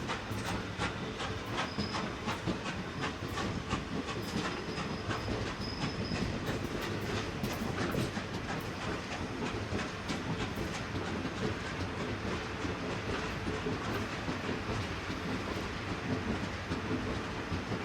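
A goods train of wagons behind a Class 24 steam locomotive rolling along the track, with steady running noise and many sharp clicks of wheels over rail joints. A faint high tone sounds briefly twice in the first six seconds.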